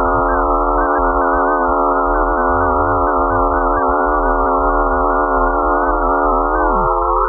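Space-sound sonification of Mars's moon Phobos: a dense cluster of steady electronic tones, slightly wavering. Near the end some of the tones glide upward while a lower one falls away.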